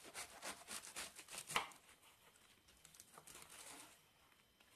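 Kitchen knife slicing through a head of iceberg lettuce on a wooden cutting board: a quick run of crisp, crunchy cuts for the first second and a half, the last of them the loudest, then fainter, scattered cuts.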